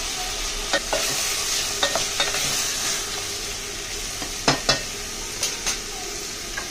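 Mutton pieces and bones sizzling in hot oil in a pressure cooker, stirred with a wooden spatula that knocks against the pot several times, in pairs.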